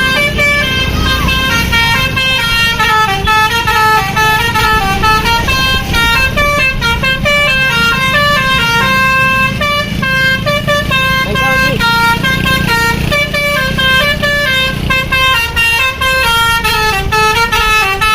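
Bus telolet horn, a Basuri multi-tone air horn, playing a tune of quick stepped notes with no break, over a low vehicle rumble.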